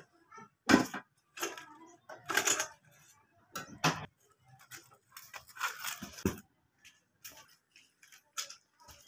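Irregular knocks and clatters of metal cookware being handled and set down at a gas stove. Some are sharp clicks and some are duller thuds, with short pauses between them.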